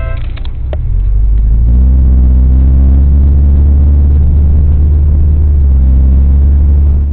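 Car engine and road rumble heard inside the cabin through a dashcam microphone while driving: a deep, steady drone that grows louder about two seconds in and then holds.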